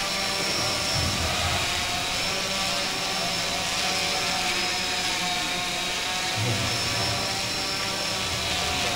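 Quran recitation: a man's voice holding one long, slowly wavering note, amplified through a microphone and loudspeakers.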